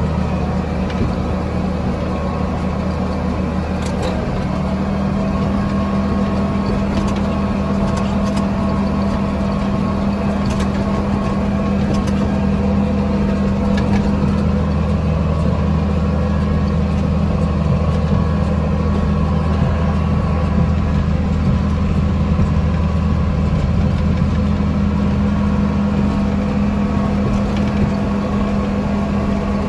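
Tractor engine running steadily while pulling a hay baler, with a few faint clicks over the engine sound.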